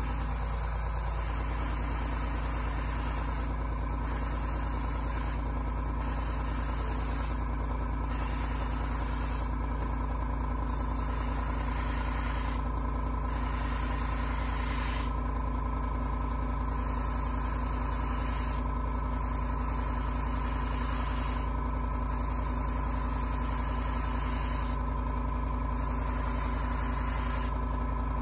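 Airbrush spraying paint at about 15 psi: a steady hiss of air that drops away briefly every two to three seconds, over a constant motor hum.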